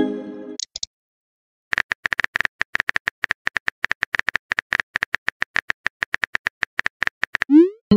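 Texting-app sound effects: a short chime as a message is sent, then after a brief pause a quick run of keyboard-tap clicks, about six a second, as the next message is typed. Near the end a rising swoop leads into another message chime.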